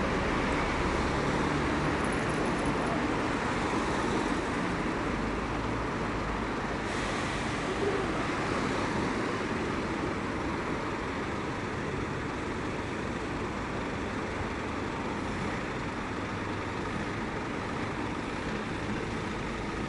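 Steady road traffic noise, a continuous hiss of passing vehicles that eases off slightly over the stretch.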